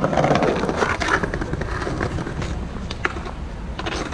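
Skateboard pushed off and rolling over stone paving slabs, a continuous rumble with sharp clacks as the wheels cross the slab joints.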